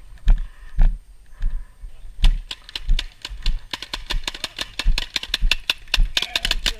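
Paintball markers firing: sharp pops, some close and heavy with a low thump about every half second, then a fast stream of quicker pops from about three seconds in.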